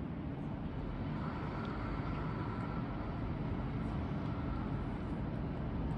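Steady low rumble of city street ambience and distant traffic, with a faint steady whine from about one to five seconds in.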